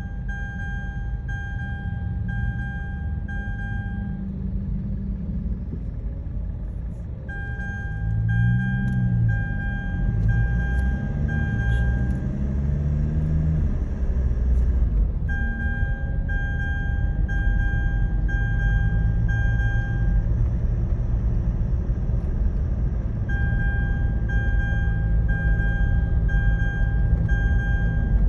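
Mitsubishi Pajero Sport's seat belt reminder chime beeping about once a second in groups of five, with pauses of about three seconds between groups, warning that a seat belt is unfastened. Engine and road noise inside the cabin run underneath and grow louder as the car picks up speed.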